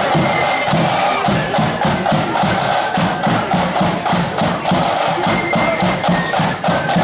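Marching flute band's drums beating a steady, fast marching rhythm of sharp side-drum strokes over a pulsing bass drum, with a few faint flute notes above.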